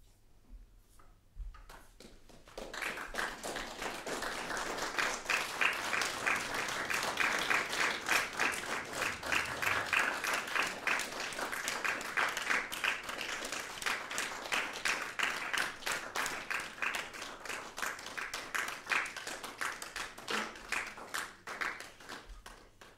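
Audience applauding: the clapping starts about three seconds in, stays full through the middle and thins out near the end.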